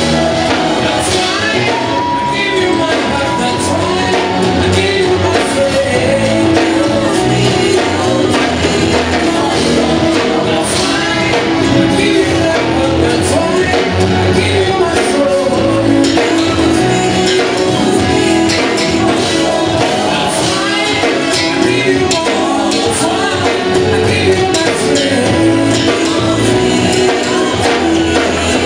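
A live song: lead and backing vocalists singing together over instrumental accompaniment with a steady beat.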